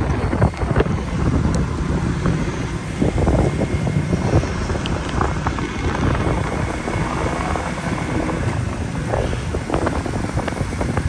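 Wind rushing over the microphone with the steady low rumble of a moving vehicle on a street.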